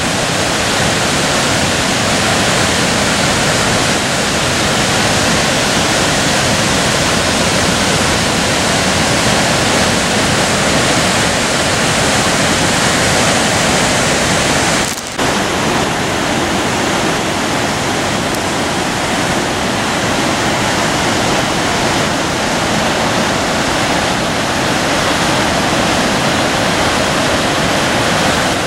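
A large river waterfall and its rapids rushing: a loud, steady, even wash of water, with a momentary drop in level about halfway through.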